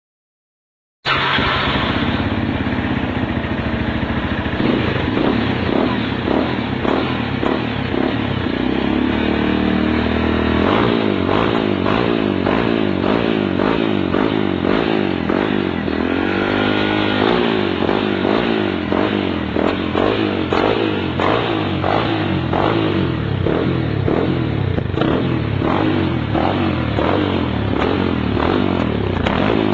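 Motorcycle engine running through a Coyote TRS tri-oval aftermarket muffler, with a rapid, even firing beat. It starts abruptly about a second in, and the throttle is blipped so the pitch rises and falls, most clearly around ten and seventeen seconds in.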